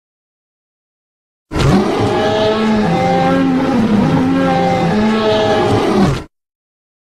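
Tyrannosaurus roar sound effect: a loud, pitched call about five seconds long whose tone rises and falls in waves, starting about a second and a half in and cutting off abruptly.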